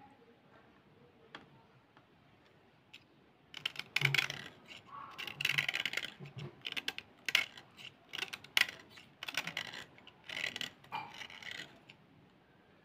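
Small knife blade scraping along the edge of a slate pencil, shaving off powdery slate. After a few quiet seconds comes a run of short, irregular scrapes, which stop about a second before the end.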